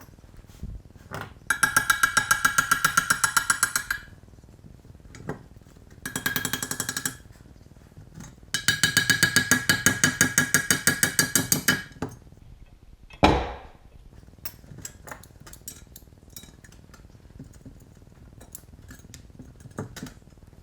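A pneumatic impact tool hammering in three bursts of rapid, evenly spaced blows with a metallic ring, backing fasteners out of a cast iron stove door. A single sharp knock follows, then light metal clicks as the hardware is handled.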